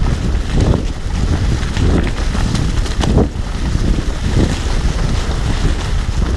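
Wind buffeting a handlebar-mounted microphone over the rumble of fat 29-plus mountain bike tyres rolling on a leaf-covered dirt trail, with scattered knocks from bumps.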